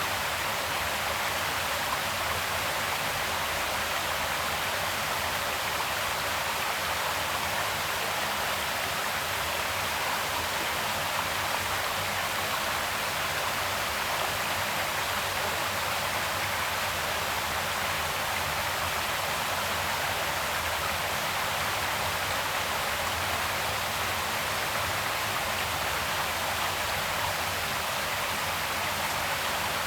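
Creek water flowing steadily over rocks, an even rushing hiss with no change.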